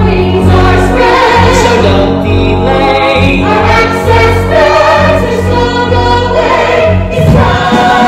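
Stage-musical cast singing together in chorus over a live pit orchestra, with a steady loud band sound underneath.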